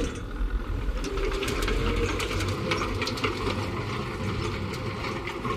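Tractor engine running steadily while it pulls a seeding complex, with irregular clicking and rattling from the seeder.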